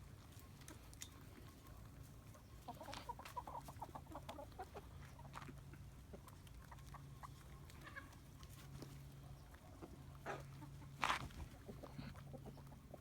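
Chickens clucking softly, with a quick run of clucks about three seconds in and a louder sharp call about eleven seconds in.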